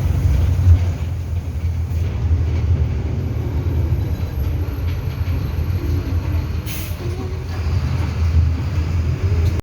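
Inside a moving city bus: the engine's steady low rumble with road noise, and a single short click about seven seconds in.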